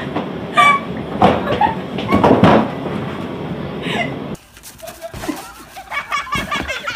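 Young women laughing and squealing inside a train carriage over the steady rumble of the moving train. About four seconds in it cuts abruptly to a quieter outdoor scene with short shouts.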